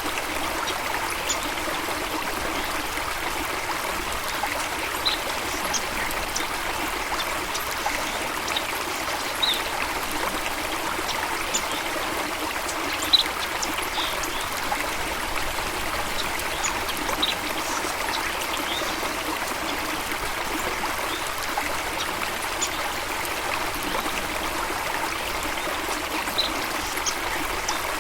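Running water flowing steadily, an even rushing trickle, with brief faint high-pitched chirps scattered through.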